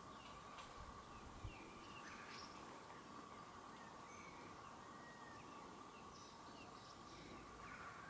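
Very quiet rural ambience: faint, scattered bird chirps over a steady faint high tone, with one brief low thump about a second and a half in.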